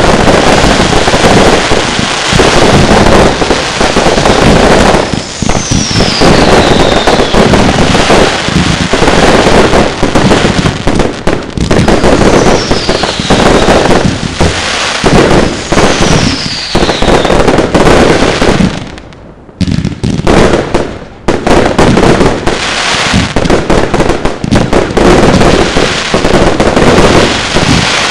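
A firework display's barrage of cakes firing: a dense, loud run of bangs and crackles. Three falling whistles cut through about five, twelve and sixteen seconds in, and the firing briefly thins out about nineteen seconds in before building up again.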